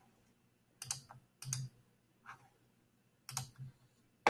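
Quiet, scattered clicks of a computer keyboard or mouse being worked, about six short clicks at uneven intervals.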